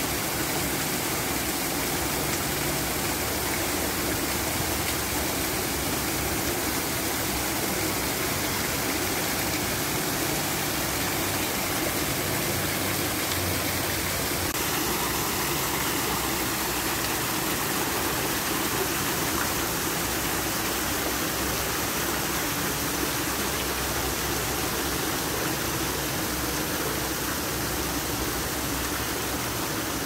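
Small garden waterfall pouring steadily down a rock face and splashing into a shallow pool.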